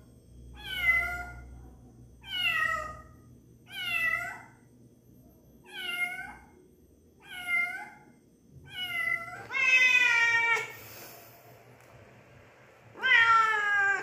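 Cat meowing. Six short, high meows come about a second and a half apart, each rising then falling in pitch. A longer, louder meow follows about ten seconds in, and another comes near the end.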